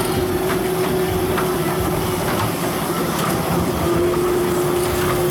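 Small kiddie ride train running along its track, with a steady hum that drops out for a couple of seconds midway and then returns, and a few light clicks.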